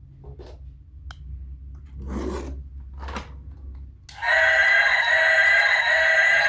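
A few short rubbing, scraping handling sounds and a click over a low hum. About four seconds in, loud electronic music with held notes cuts in.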